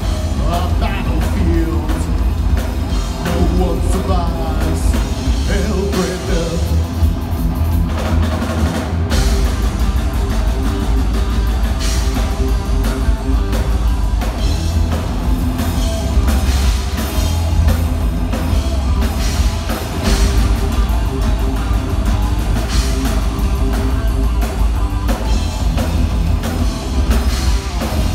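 Heavy metal band playing live at full volume: distorted electric guitars, electric bass and a pounding drum kit.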